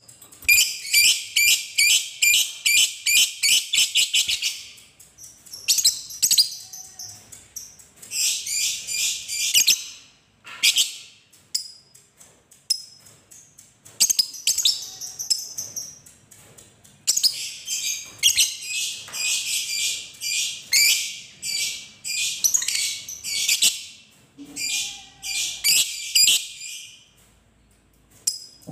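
Fischer's lovebird chattering in its long trilling 'ngekek' song: rapid high-pitched pulses, about five a second, in bouts a few seconds long separated by short pauses, the longest lasting about ten seconds.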